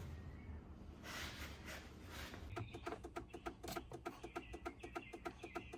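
Jeep Grand Cherokee turn-signal flasher clicking rapidly and evenly, starting about two and a half seconds in after a short rustle. This is hyperflash: an LED bulb draws less current than the incandescent bulb the original flasher was built for.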